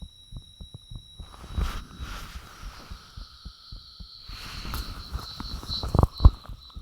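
A person's heartbeat picked up by a microphone against the body: repeated low thumps, with spells of hiss from about a second in and again from about four seconds in, and two loud knocks near the end. A thin steady high whine runs underneath.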